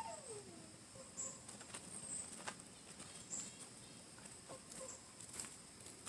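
Faint outdoor background: short high chirps about once a second, a falling whistle in the first second, and scattered faint clicks.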